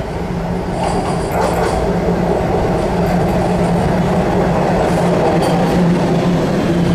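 Toronto Rocket subway train pulling into an underground station platform, a steady rumble of its wheels on the rails and running gear, with a constant low hum, growing gradually louder as it approaches and runs alongside.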